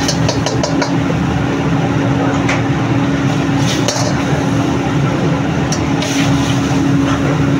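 A steel ladle stirring and scraping gravy in a wok, with scattered clinks of metal on metal, over a loud, steady kitchen roar carrying a constant hum.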